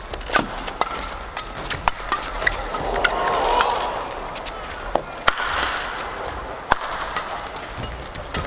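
Badminton rackets striking the shuttlecock in a fast doubles rally: a string of sharp cracks at irregular intervals, some in quick pairs. Arena crowd noise rises and falls between the shots.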